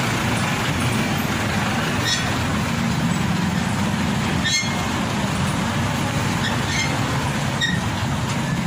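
A heavy diesel engine running steadily, with a few short high chirps over it.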